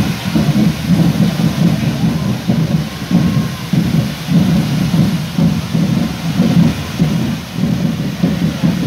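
Several hand-held firework fountains (carretilles) on correfoc devils' forks hissing and crackling as they spray sparks. Beneath the hiss runs a loud low rumble that swells and fades about twice a second.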